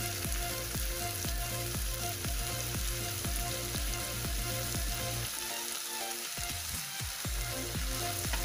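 Shredded cabbage and chopped vegetables sizzling in oil in a kadhai, with a spatula scraping and stirring through them. Soft background music with held notes plays underneath, its bass dropping out briefly in the middle.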